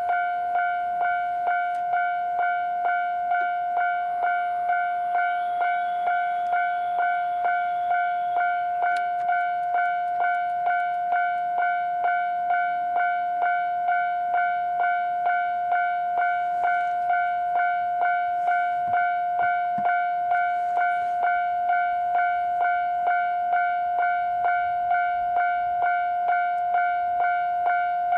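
Railway level-crossing alarm ringing, an electronic bell striking about twice a second at a steady pitch. It is the warning that the crossing is closing for an approaching train.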